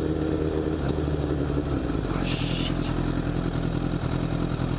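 Sport motorcycle engine running at low speed, heard from on board the bike; its note changes about two seconds in, with a brief hiss just after.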